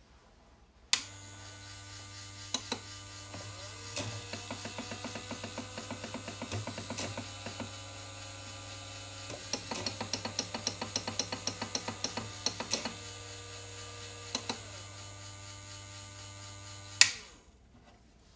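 Brass case annealer's small electric motor switched on with a click and running with a steady hum, its tone shifting as the digital speed controller is set. Two long runs of quick clicks from the controller buttons sound over it, and a second click shuts the motor off a second or so before the end.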